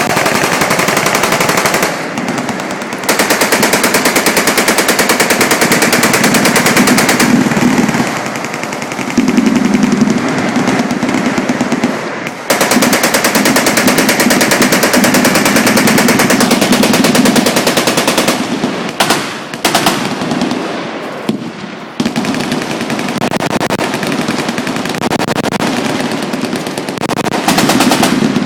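Fully automatic machine-gun fire in rapid strings of shots that run almost without pause, with a few brief lulls.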